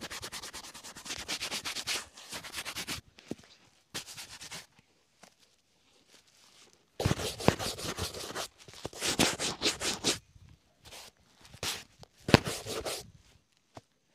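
Bristle shoe brush buffing polished black leather shoes: rapid back-and-forth scratchy strokes in several bursts, with short pauses between them.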